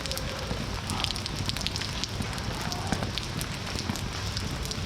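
Steady rain: a dense crackling hiss of drops pattering on surfaces, with many small sharp taps of individual drops.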